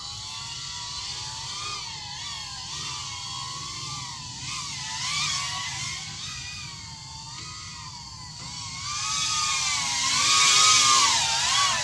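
Micro FPV drone's motors and propellers whining, the pitch rising and falling constantly with the throttle. The whine grows loudest near the end as the drone flies in close under the porch.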